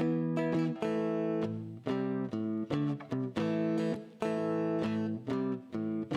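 Guitar strumming chords with no singing, the chord changing every second or so.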